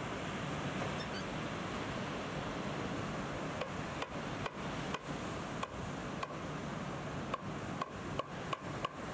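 Steady wash of ocean surf and wind noise. From about three and a half seconds in, a string of irregular short sharp clicks cuts through it, about a dozen.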